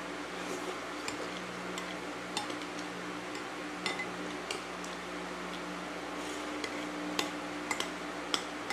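Spoon clinking and scraping against a plate, with a dozen or so irregular light clicks, the sharpest in the last two seconds, over a steady low hum.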